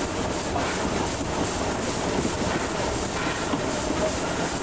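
Baldwin steam locomotive running at speed, its exhaust chuffing in a steady rhythm of about two to three beats a second over the rumble of wheels on the track.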